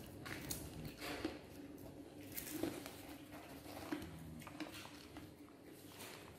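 Faint scattered rustles and light clicks of popcorn being handled in a clear plastic cup, over a low steady hum.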